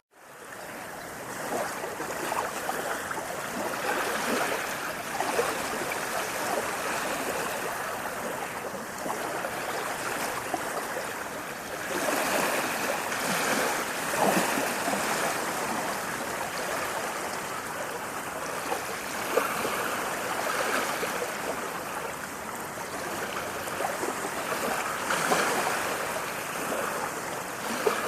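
Running water, a steady rush of flowing water with small splashes and gentle swells in loudness. It fades back up from a brief dropout at the start.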